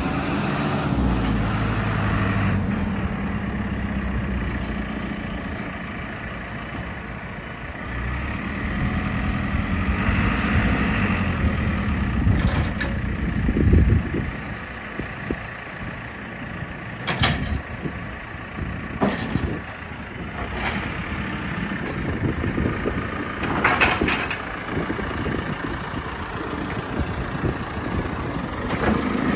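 JCB 3CX backhoe loader's diesel engine running steadily, with a handful of sharp clanks in the second half.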